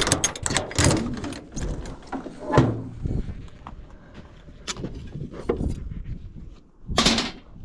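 Welding leads and metal gear being pulled out and handled: a run of irregular knocks and clanks with a scrape about two and a half seconds in and a short rushing sound near the end.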